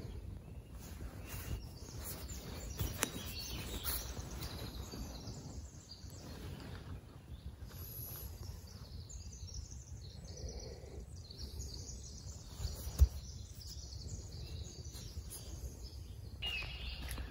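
Small birds chirping and tweeting, faint over a low steady rumble, with one sharp tap about 13 seconds in.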